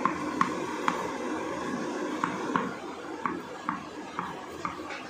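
A tennis ball bounced repeatedly with a tennis racket: about ten sharp pings of ball on racket, in uneven runs.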